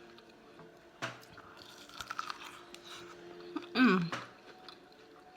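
A person chewing seafood with wet mouth clicks and smacks. A short hum of pleasure comes a little before the end.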